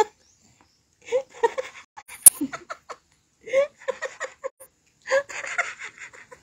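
Laughter and giggling in three short spells with quiet gaps between them, and a single sharp click a little over two seconds in.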